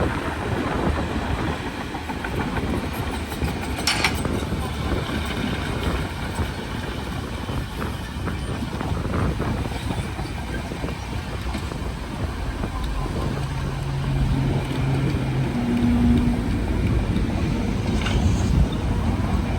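Bulldozer working: a steady heavy diesel rumble with steel crawler tracks clanking, and a couple of sharp metallic knocks.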